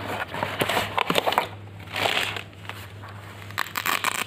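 Cardboard packaging scraping and crinkling as a clamp meter in its fabric carry case is slid out of the box, with irregular clicks and crackles that bunch up near the end, over a steady low hum.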